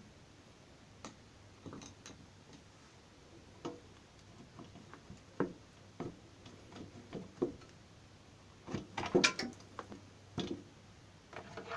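Hand tools clicking and clinking against metal motorcycle parts while a bolt is undone: scattered, irregular taps, with a louder cluster of clinks about nine seconds in.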